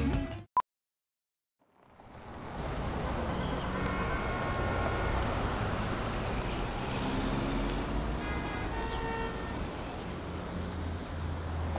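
Rock music cuts off, a single short beep sounds, and after a second of silence city street traffic fades in: cars driving past on a busy road, with steady road noise.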